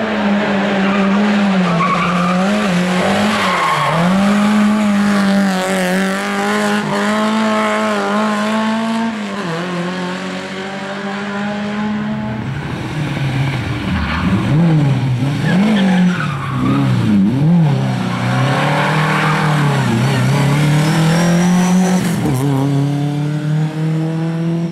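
Rally car engines running hard at high revs on a closed road stage. The engine note holds high and wavers for about the first half, then dips and climbs rapidly several times with gear changes and throttle lifts.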